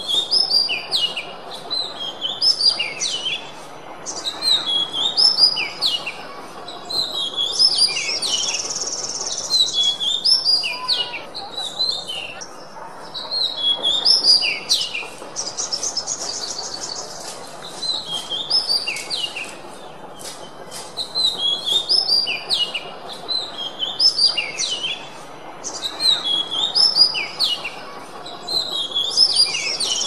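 Oriental magpie-robin (kacer) singing: repeated phrases of quick, high whistled notes, now and then broken by a rapid buzzy trill.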